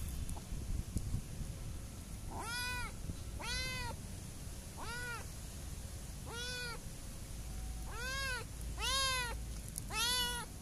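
Orange tabby kitten meowing, seven short, high-pitched meows, each rising and falling in pitch, starting about two and a half seconds in and coming every second or so, the last two the loudest.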